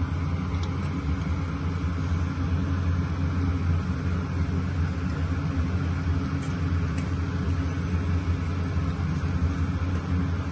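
Steady low mechanical hum and rumble, like a running motor, with a few faint light ticks.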